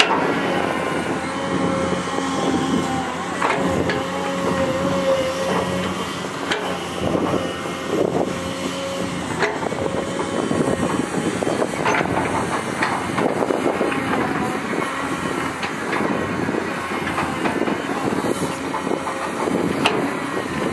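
Caterpillar hydraulic excavator running while it digs soil: a steady engine and machinery drone with a held tone through about the first half, and scattered clanks and knocks from the working bucket and arm.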